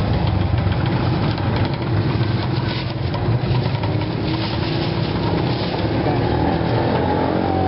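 Steady street traffic rumble, motorcycle and car engines running and passing close by.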